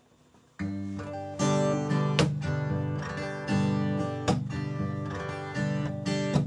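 Acoustic guitar being strummed, playing the introduction to a song. It comes in about half a second in, with chords ringing on and a sharp accented strum roughly every two seconds.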